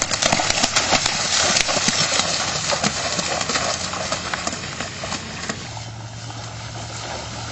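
Feet running and splashing through shallow floodwater on grass while a canoe is shoved along, a fast irregular patter of splashes. About five and a half seconds in the splashing thins out to quieter water sounds over a steady low hum.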